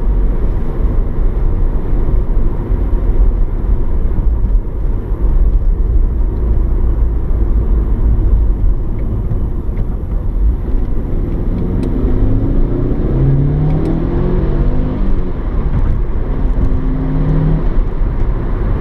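Cabin sound of a Mitsubishi Lancer Evolution 6.5's turbocharged four-cylinder engine and road rumble while driving. About eleven seconds in, the engine note rises in steps as the car accelerates.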